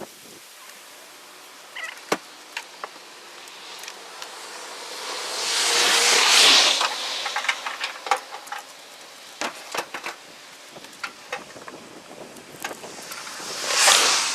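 Water rushing and splashing around a kayak on a river, swelling up twice, with scattered light knocks and clicks.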